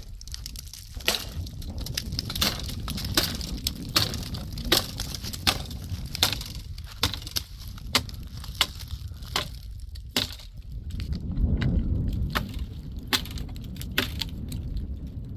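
A small axe chopping at tree branches: sharp wooden blows, roughly one every three-quarters of a second, with a short pause and a gust of wind on the microphone about two-thirds of the way through.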